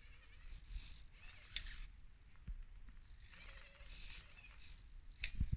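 SCX24 micro crawler driving on a test obstacle. The small electric motor and drivetrain whir in short bursts as the throttle is worked, with plastic parts rattling.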